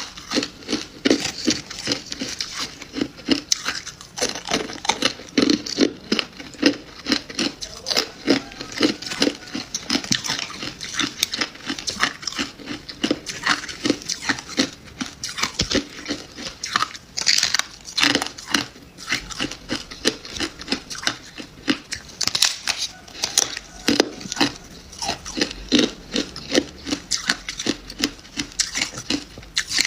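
Close-up chewing of freezer frost, crunching steadily at several crunches a second.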